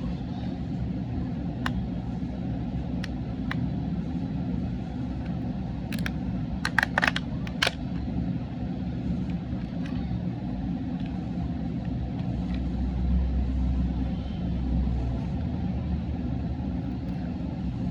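Steady low rumble, with a few sharp clicks and a quick cluster of them about six to eight seconds in.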